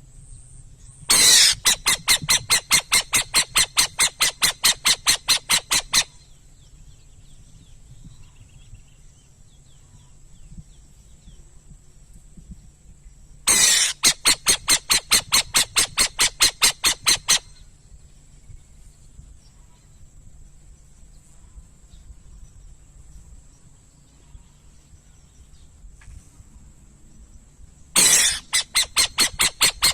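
Burrowing owl giving its harsh chattering call: rapid runs of rasping notes, about five a second, in three bouts of four to five seconds each, each bout opening with a louder note.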